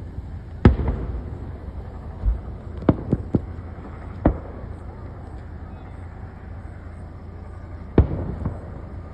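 Fireworks going off in a series of bangs and cracks: a loud bang just under a second in, a quick run of three sharp cracks around three seconds and another soon after, then a second loud bang near the end, over a steady low rumble.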